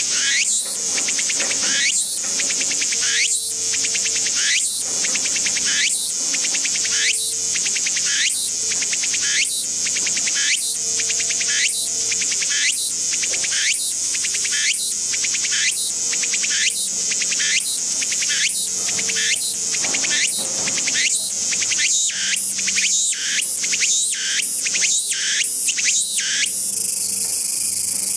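Walker's cicada (Meimuna opalifera, tsukutsuku-boshi) singing its repeated phrase song, one loud high phrase about every second. The phrases come faster near the end, then give way to a steady high buzz that closes the song.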